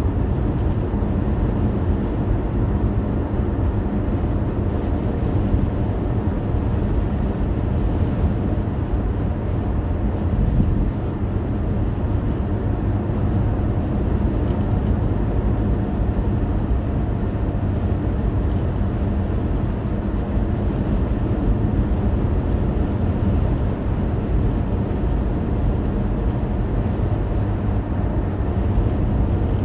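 Steady road noise inside a car cruising at highway speed: tyre and road rumble with a low drone, unchanging throughout.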